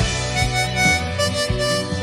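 Harmonica playing a melody of held notes, one note after another, over a low accompaniment of steady bass tones and short plucked strokes.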